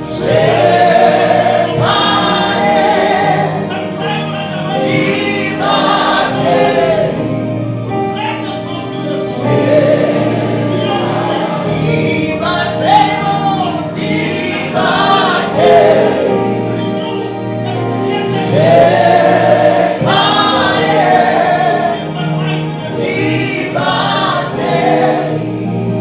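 Gospel choir singing a slow worship song with instrumental accompaniment.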